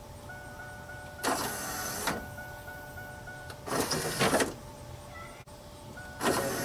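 Pop-up headlight motors of a 1997 Pontiac Firebird running three times, about a second each, as the headlights lower and raise. There is no grinding, because the motor's gear, which had two missing teeth, has just been repaired with a kit.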